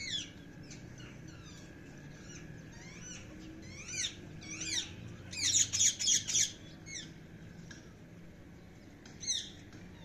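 Rose-ringed parakeets (Indian ringnecks) calling with short, sharp squawks: a call at the start, a few scattered calls, a loud fast run of about five calls around the middle, and one more near the end.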